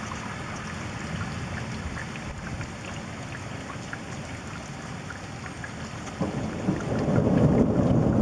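Rain falling, with scattered drop ticks over a steady hiss. About six seconds in, a low rumble of thunder builds and grows louder.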